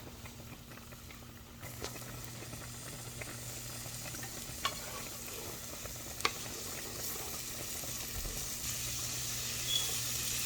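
Butter and minced garlic sizzling in a hot pan, the sizzle growing gradually louder, with a few sharp clicks.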